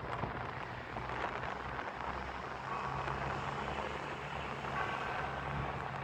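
Steady low motor hum over outdoor background noise, with two brief sets of faint high tones about three and five seconds in.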